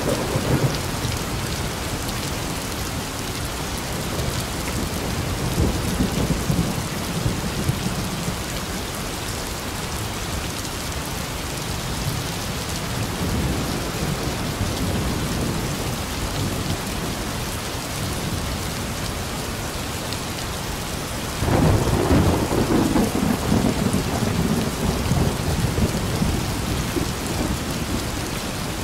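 Heavy rain falling steadily in a thunderstorm, with low rolling thunder: a rumble about six seconds in, and a louder peal that starts suddenly about three quarters of the way through and rolls on to the end.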